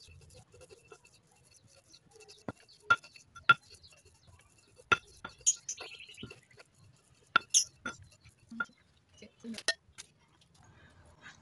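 Stone pestle knocking and scraping against a stone mortar (Indonesian cobek and ulekan) while grinding a garlic and spice paste: irregular sharp clinks and knocks with quieter grinding between them.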